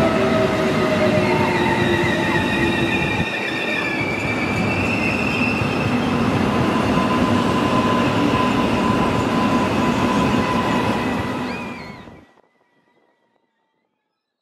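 Korail electric commuter train running past on ballasted track: a steady rumble of wheels on rail with several whining, squealing tones above it, some gliding down in pitch early on. The sound fades out quickly about twelve seconds in.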